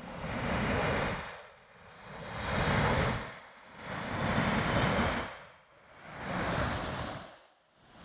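Rushing water of the Lower Düden waterfall, coming in four even surges about two seconds apart, each fading away briefly before the next.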